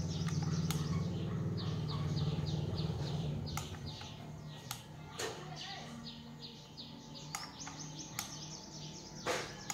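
A small bird chirping in rapid runs of short falling notes, about five a second. A low hum fades out about three seconds in, and there are a few sharp clicks.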